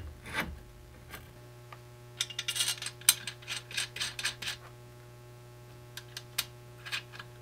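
Light clicks and taps of metal parts being handled as the rear rail of a laser engraver's metal frame is fitted and a bolt is started with an Allen key. The clicks come in a cluster a couple of seconds in and a few more near the end, over a steady low hum.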